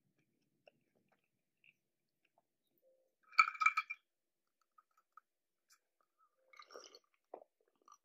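Ice cubes clinking against a glass of iced drink as it is lifted: a brief cluster of ringing clinks about three and a half seconds in, then a softer rattle of ice near seven seconds.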